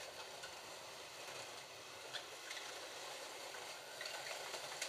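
Slot.it Ford GT40 slot cars running on a plastic track: a faint, steady high hiss of the small electric motors and the tyres and pickup braids on the rails, with a few light clicks.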